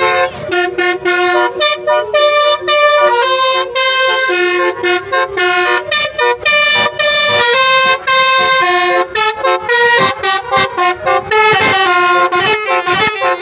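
A telolet horn on a taxi, a multi-tone horn playing a tune. It sounds a quick run of short and held notes that jump in pitch, broken by brief gaps.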